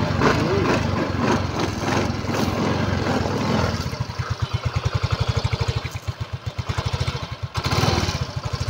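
Yamaha Mio i 125 scooter's single-cylinder four-stroke engine running just after starting, held at fast revs for the first few seconds, then settling into an even, rapid putter at idle about four seconds in, with a short blip of revs near the end.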